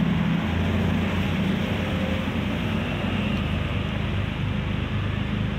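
Steady low mechanical drone of a running motor.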